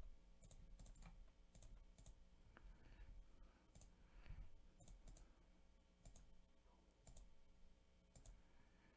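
Faint computer mouse clicks, scattered one at a time over a quiet room hum.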